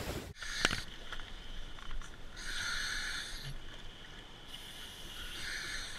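Scuba regulator hissing as a diver breathes at the canal surface: two breaths about three seconds apart, after a sharp click about half a second in.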